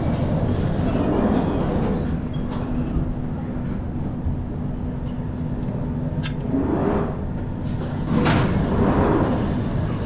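London Underground Jubilee Line train standing at the platform with its doors open: a steady low rumble and electrical hum, with a sharp knock about eight seconds in followed by a swell of noise.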